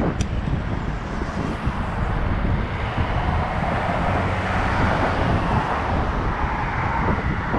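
Wind buffeting the microphone of a bicycle-mounted action camera while riding, over steady road and traffic noise; a hiss of tyres on the road swells through the middle. A short click sounds just after the start.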